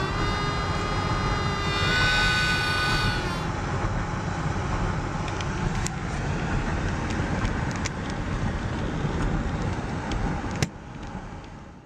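City traffic noise: a steady low rumble of passing cars. Over it, in the first few seconds, the song's last held harmonica note fades out.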